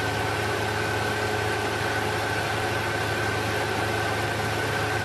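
Light training airplane's piston engine and propeller droning steadily in level cruise, heard inside the cockpit. It drops out briefly right at the end.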